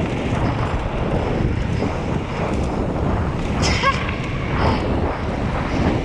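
Wind buffeting the microphone and mountain bike tyres rolling over a loose gravel trail at speed, with one short squeak a little under four seconds in.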